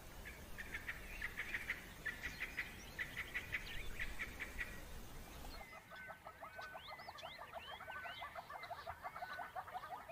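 Rapid, high animal chirping and twittering. First come quick trains of clicky chirps; after an abrupt change about halfway through, a fast, even run of chirps follows at about five a second, with higher sliding squeaks above.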